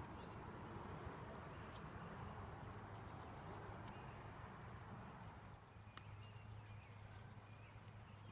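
Near silence: faint outdoor background with a steady low hum and a few faint ticks.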